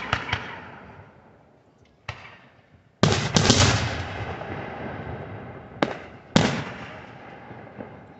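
Aerial firework shells bursting: a series of sharp bangs, the loudest about three seconds in with another right after it and a second big one past six seconds. Each bang trails off in a long fading rumble.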